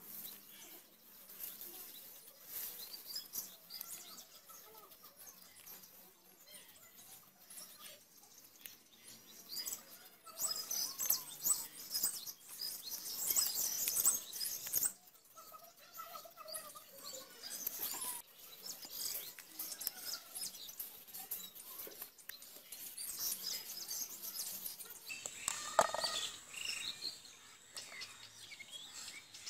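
Knife scraping the skin off pointed gourds, a run of short scraping strokes with a sharp knock near the end, while birds chirp in the background.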